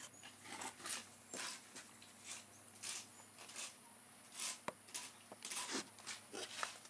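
Soft, irregular rustling and brushing from hands and camera moving among the plant's stems and leaves, with one sharp click about four and a half seconds in.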